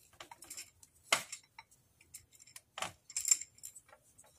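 Irregular small clicks and knocks of a hard plastic syringe being pushed and turned into the mouth of a glass jar, with the sharpest knock about a second in and a cluster of them around three seconds.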